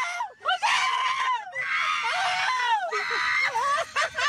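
Women shrieking inside a car: a run of long, high-pitched squeals with short breaks between them.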